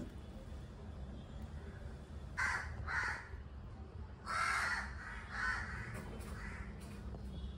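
Crow cawing: about five caws in quick succession, beginning about two and a half seconds in, the middle one the longest.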